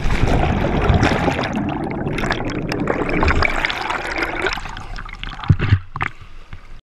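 Churning water and air bubbles rushing over an action camera plunged underwater, a loud dense rush that eases off after about four and a half seconds. A few sharp knocks follow near the end, then the sound cuts off abruptly.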